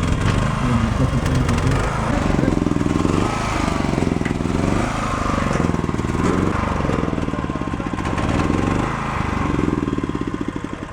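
A motor engine running, its pitch rising and falling over and over as the throttle is opened and eased.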